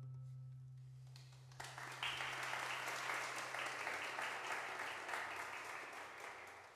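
The final low note of a violin-and-cello duo dies away. About a second and a half in, the audience starts applauding, growing fuller half a second later and tapering slightly near the end.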